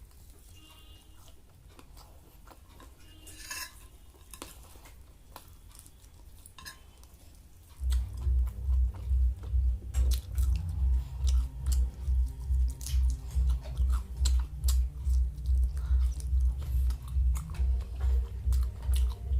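Close-up eating sounds: chewing and crunching of fried Maggi noodles and chicken pakora, with faint sharp clicks. About eight seconds in, background music with a heavy steady beat, about three thumps a second, starts and becomes the loudest sound.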